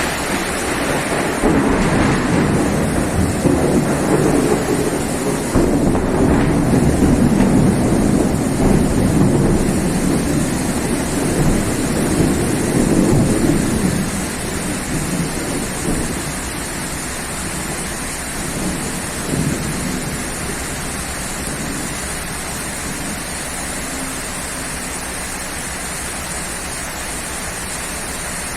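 Steady rain falling, with a long rolling rumble of thunder through the first half that dies away about halfway through.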